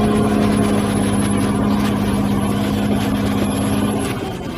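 Bulldozer engine running steadily, a constant droning hum over rumbling noise; the hum stops a little past four seconds in.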